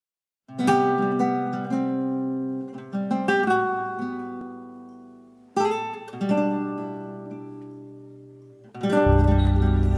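Acoustic guitar playing a free-tempo flamenco-style intro: strummed chords that ring out and fade, in two phrases. Near the end a fuller band with heavy bass comes in, louder.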